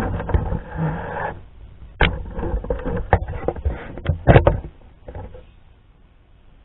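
Handling noises: rustling and scraping with several sharp knocks, about two, three and four seconds in.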